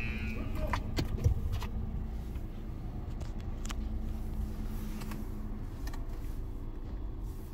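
Low rumble of a car and an automatic car wash heard from inside the car's cabin at the tunnel entrance. A steady hum stops about two-thirds of the way through. Several sharp clicks sound in the first couple of seconds, the loudest a knock about a second in.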